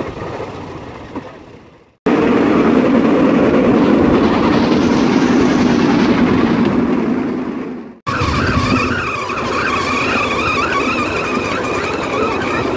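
Bamboo train (norry) running along the rails: a loud, steady rattle of its steel wheel sets on the track, pushed by its small engine. After a sudden break near the middle comes a steadier noise with a wavering whine.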